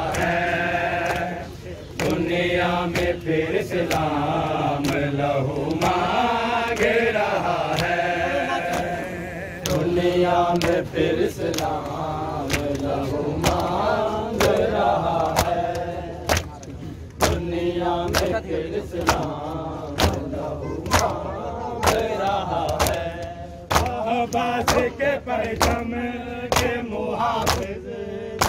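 Men chanting a nauha, a Muharram mourning lament, together with a steady rhythm of sharp hand slaps on bare chests (matam) kept in time with the chant. The slaps grow sharper and more prominent about halfway through.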